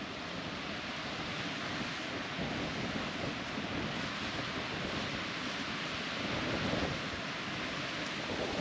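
Ocean surf breaking and washing onto a beach, a steady rushing that swells a little about seven seconds in.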